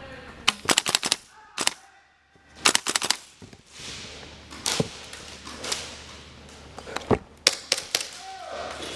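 Gas blowback airsoft rifle, a KWA LM4, firing in short rapid bursts and single shots of sharp cracks, several volleys spread across the few seconds, the bolt cycling with each shot.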